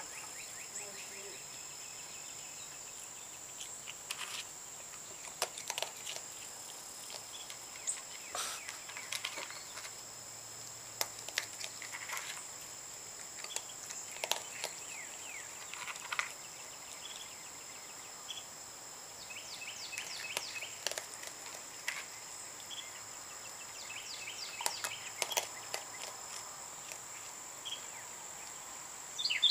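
Young raccoon chewing dry cat food, irregular crunches and clicks of kibble, over a steady high-pitched insect drone.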